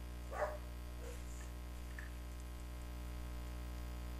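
Steady low electrical hum, with one brief short sound about half a second in.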